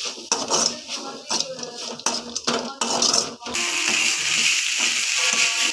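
Perforated metal spoon stirring and scraping drumstick-leaf stir-fry in a metal kadai, with rapid clinks and scrapes against the pan. About three and a half seconds in the stirring stops and the frying food sizzles steadily.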